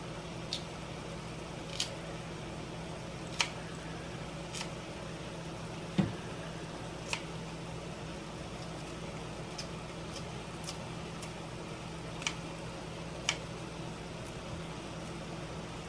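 Kitchen scissors snipping a red hot pepper into a skillet: about a dozen short, sharp snips, irregular and one to two seconds apart, the loudest about six seconds in, over a steady low hum.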